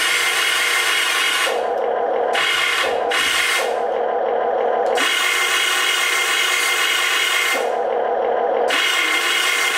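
Electric motors and actuators of a HUINA 1580 full-metal RC excavator whining as the boom, arm and bucket are worked. The sound switches abruptly several times between a bright, high whine and a lower hum as different functions start and stop.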